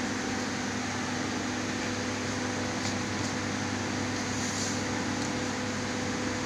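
Hydraulic press brake's power pack running: a steady electric motor and pump hum with a constant tone. A few faint light ticks sound around the middle.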